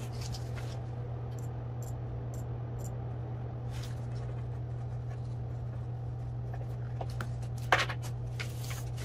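Paper shipping labels being handled at a desk, with scattered light clicks and one sharper click near the end, over a steady low hum.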